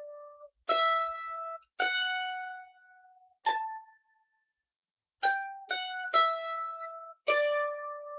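Mandolin picked slowly, one note at a time: about seven single notes, each left to ring out, with a short silence around the middle.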